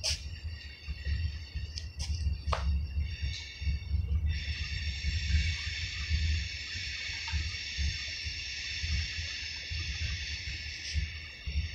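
Wind rumbling on the microphone, with a few sharp clicks in the first three seconds. About four seconds in, a steady high buzz starts and holds.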